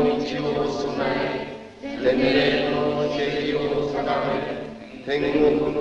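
A crowd of voices chanting a prayer together in unison, in long held phrases with short breaks between them, one beginning about two seconds in and another about five seconds in.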